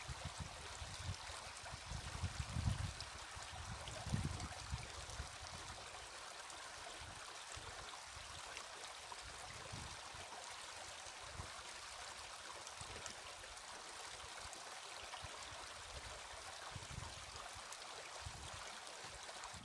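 Steady rushing of running water, with a few low thumps in the first four seconds.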